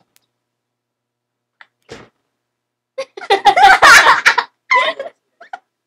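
Girls laughing and giggling: a loud fit of laughter starts about three seconds in and lasts about a second and a half, with a shorter burst after it.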